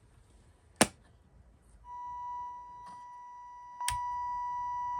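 A sharp click, then a steady high-pitched test tone with a buzzy edge from the EICO 150 signal tracer's speaker comes on about two seconds in. It gets louder after a second click near four seconds, as the probe or switch contact changes.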